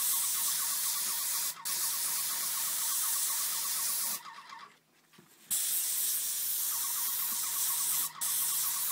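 Airless paint sprayer gun on an extension pole spraying paint: a steady hiss with a fast pulsing underneath. It stops briefly about a second and a half in, stops for over a second in the middle, and stops briefly again near the end as the trigger is let go.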